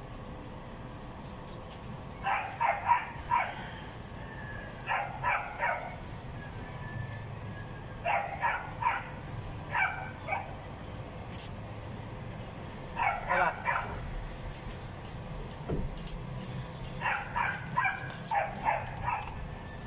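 A dog barking in short runs of three to five quick yaps, repeated every few seconds.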